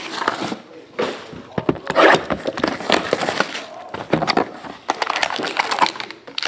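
Hands opening a cardboard trading-card box and handling a foil-wrapped card pack: an irregular run of rustles, crinkles and light knocks.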